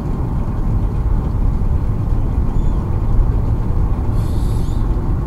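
Steady low road and engine rumble inside a car's cabin cruising at highway speed, about 110 km/h.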